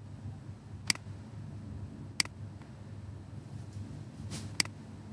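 Computer mouse button clicking three times, a second or two apart, over faint low background noise.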